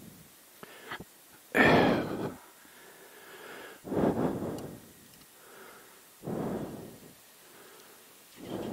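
A person breathing close to the microphone, one breath about every two and a half seconds, with quiet between breaths.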